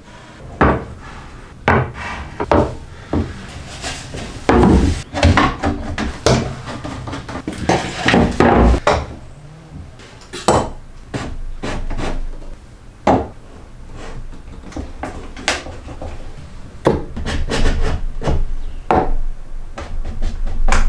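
Irregular wooden knocks, clacks and scrapes as a heavy rough-sawn board and a steel combination square are handled and set against a plywood sled.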